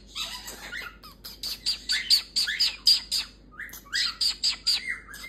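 Galah cockatoo making a rapid series of short, harsh screeching calls, two or three a second. A few longer upward-sweeping calls come near the end.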